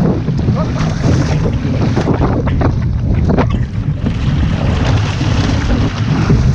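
Wind buffeting the microphone over water rushing and splashing along a one-person outrigger canoe's hull and float as it is paddled through open-ocean chop. A run of quick splashes comes in the first few seconds.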